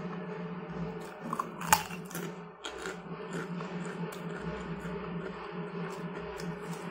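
Eating sounds: a metal spoon clicking and scraping on a plate, with a sharp clink just under two seconds in, and chewing of crunchy crackers, over a steady low hum.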